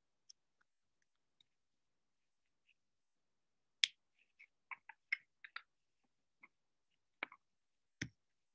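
Faint, scattered short clicks over near silence, with a quick run of them about four to five and a half seconds in and a sharper one near the end.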